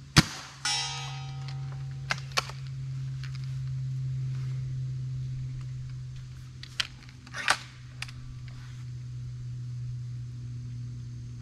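Two shots from a .30 calibre break-barrel air rifle, one just after the start and one at the very end, each a sharp crack. Just after the first shot comes a ringing tone lasting about a second and a half. Several smaller clicks and snaps fall between the shots.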